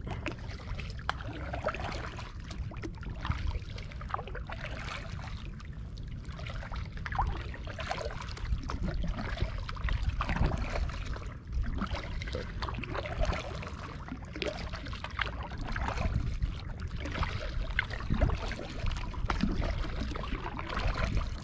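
Kayak paddles dipping and splashing in calm water, with water trickling and dripping off the blades between strokes, over a steady low rumble.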